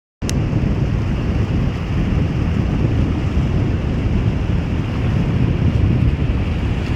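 Wind buffeting the microphone: a steady, loud low rumble that starts abruptly just after the beginning with a faint click.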